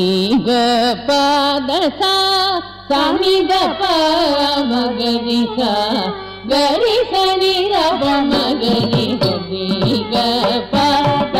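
Carnatic music for a Bharatanatyam jatiswaram in raga Bilahari: a voice sings an ornamented, gliding melody over a steady drone, with sharp percussion strokes marking the rhythm.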